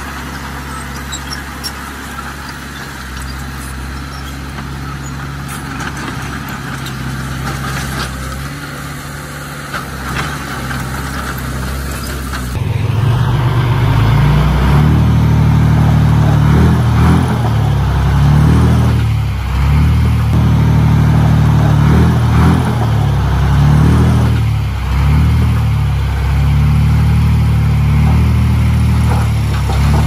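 Heavy diesel earthmoving machinery running steadily, then about twelve seconds in growing much louder, with the level rising and dipping over and over as the engine works under varying load.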